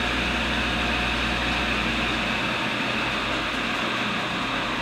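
Tool and cutter grinder running steadily, its wheel grinding a high-speed steel single-lip countersink, with a steady hiss over a motor hum. A low rumble drops away about halfway through.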